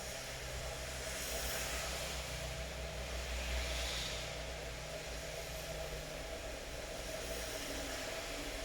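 Steady rain falling, an even hiss that swells a little louder between about one and four seconds in, over a low steady hum.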